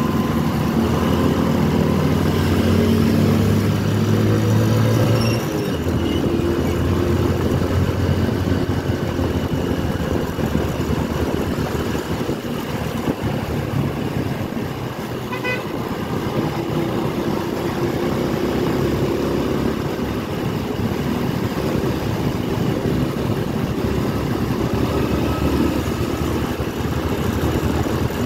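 Motorcycle riding under way, its engine running with a steady note that falls away about five seconds in, leaving mostly wind and road noise. A short horn toot sounds about halfway through.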